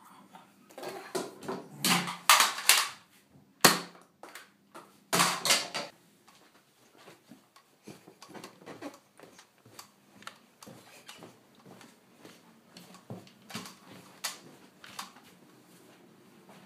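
Handling noise from a handheld camera being picked up and carried: loud rustling and knocks for the first few seconds, with one sharp knock, then light scattered taps.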